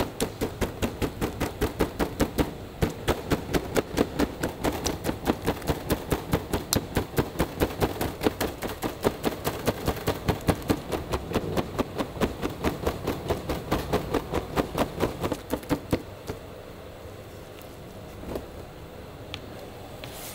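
Rapid, even chopping: a cleaver striking a chopping board about four to five times a second, typical of roast meat being cut up for serving. The chopping stops a few seconds before the end.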